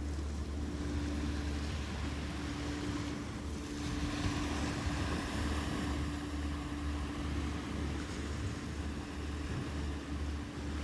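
An engine running steadily: a low, even hum with a steady tone above it.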